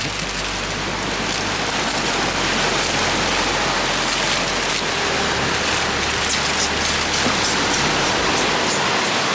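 Oil and food frying in a pan on a portable gas stove: a steady sizzle with fine crackles.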